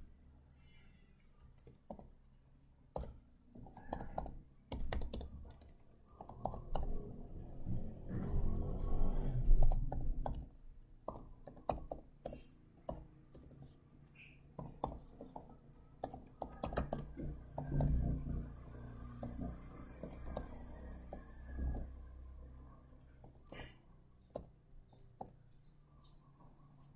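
Typing on a computer keyboard: irregular runs of key clicks with short pauses between words, with some duller low knocks mixed in, loudest about a third of the way in.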